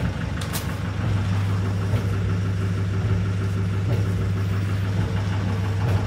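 City bus engine idling steadily, heard from inside the passenger cabin as a constant low hum, with a brief light click about half a second in.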